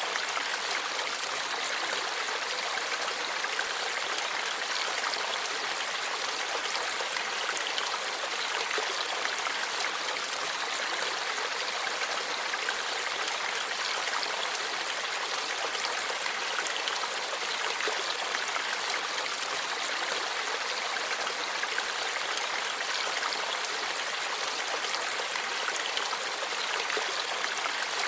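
Forest stream flowing steadily over rocks, an even rushing and babbling of water with no breaks.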